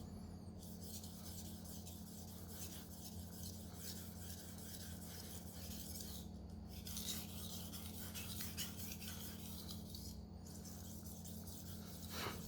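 Knife blade stroked repeatedly across a sharpening whetstone: a continuous scratchy rasp of steel on stone, with brief pauses about six seconds and ten seconds in. A steady low hum runs underneath.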